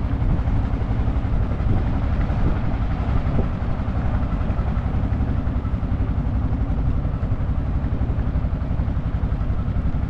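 Small motorboat's engine running steadily at cruising speed, a fast even chug with a hiss of water and wind over it.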